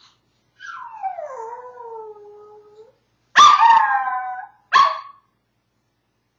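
Maltese dog howling from separation anxiety: a long howl sliding down in pitch, then a louder, shorter howl about three seconds in, and a single short bark about a second after that.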